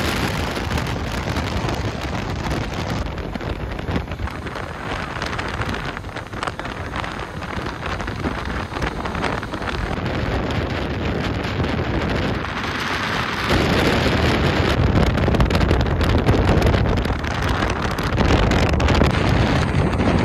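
Heavy wind buffeting the microphone, a dense rushing noise that grows louder and deeper about two-thirds of the way in.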